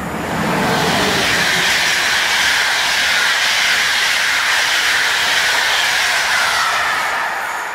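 EP09 electric locomotive and its train of passenger coaches passing at speed: a loud, steady rush of wheel and rail noise, with a lower rumble as the locomotive goes by in the first second, fading near the end.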